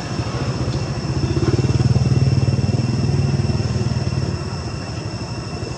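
A motor vehicle engine, likely a motorcycle, running past: its low pulsing hum swells about a second in and fades away after about four seconds.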